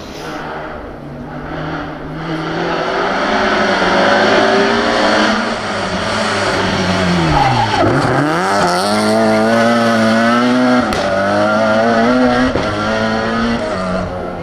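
Rally-prepared BMW 3 Series Compact racing past. Its engine note drops steeply as it brakes and gears down for a tight bend about halfway through, then rises in steps as it accelerates away through the gears, with one sharp crack a few seconds later.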